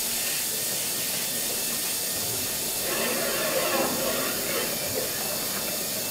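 5-inch gauge live steam locomotive, a model of Leek and Manifold Valley Light Railway No. 2 J. B. Earle, hissing steam steadily.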